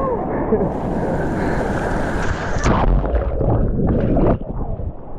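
Ocean surf breaking and rushing, with wind buffeting the microphone. A sharper surge of water comes a little past halfway, and the rush falls away near the end.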